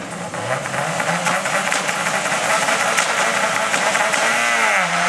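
Subaru Impreza rally car approaching at speed, its turbocharged flat-four engine growing louder and higher, with a rapid crackle over it. Near the end the engine pitch dips and climbs again as it lifts and gets back on the power.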